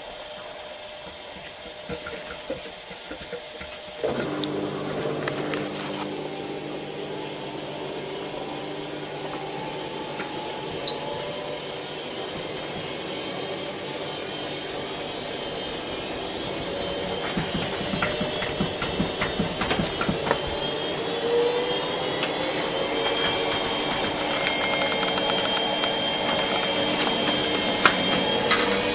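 Faure FWF10141PS front-loading washing machine on its 800 rpm spin cycle. The motor jumps up in level about four seconds in, then its whine slowly rises in pitch as the drum gathers speed, with scattered clicks and rattles.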